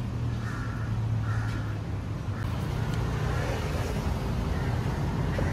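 Steady low rumble of road traffic close by.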